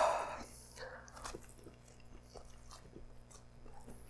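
A man biting into and chewing a slice of stuffed pizza close to the microphone: a brief loud rush of breath right at the start, then quiet, scattered little mouth clicks as he chews.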